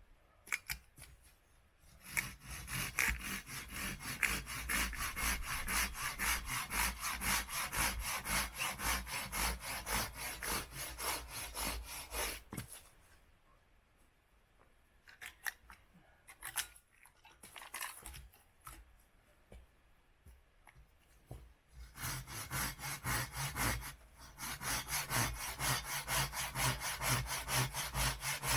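Hand saw cutting through wood in quick, steady strokes. The sawing stops for several seconds near the middle, with only a few short scrapes, then starts again.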